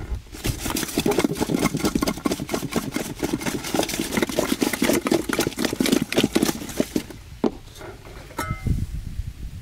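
Fried chicken drumsticks shaken inside a covered aluminium pot: a fast, continuous rattling and thudding of the pieces against the metal for about seven seconds, then stopping, with a couple of single knocks as the lid is handled.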